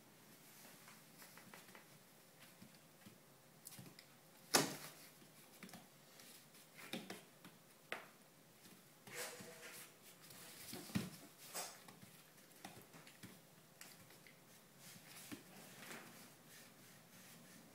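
Faint scuffling of two three-week-old Weimaraner puppies wrestling, with scattered soft knocks and taps against the whelping box; the loudest knock comes about four and a half seconds in.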